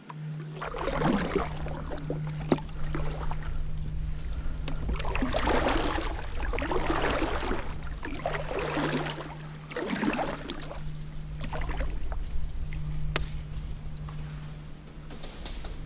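Kayak paddle strokes: the blade swishing and splashing through the water in a series of strokes, each lasting about a second. Two sharp clicks are heard, one a couple of seconds in and one near the end.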